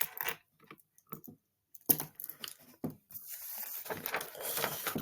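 A few small clicks and knocks, then about three seconds in a steady rustling noise that keeps going.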